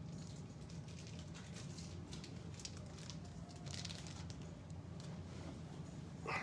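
Faint rustling and light clicking of plastic card sleeves and top loaders being sorted through, over a steady low hum, with a brief louder clatter at the very end.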